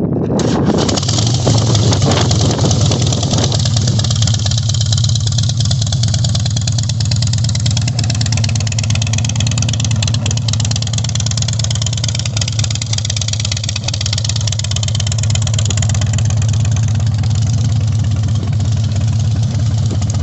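2006 Harley-Davidson Night Train's Twin Cam 88B V-twin running through open exhaust with the baffles removed. It comes in sharply at the start, is busier for the first few seconds, then settles into a steady idle.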